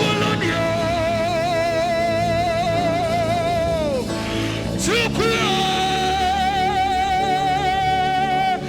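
Gospel worship music with two long held melody notes, each wavering with vibrato; the first slides down and falls away about four seconds in, and the second starts just after five seconds.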